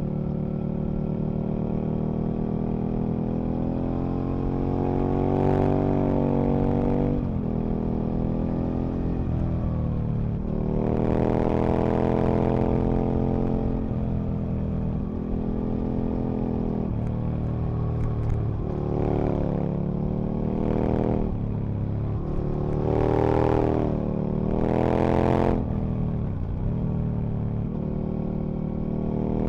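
Aprilia RSV Mille RP's 60° V-twin engine under way, revving up hard several times and dropping back off the throttle in between, the loudest pulls coming about five seconds in, around eleven seconds, and twice near the end.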